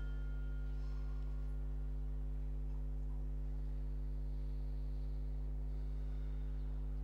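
Steady low electrical mains hum, typical of a sound system, with no other clear sound over it. A ringing tone dies away just after the start.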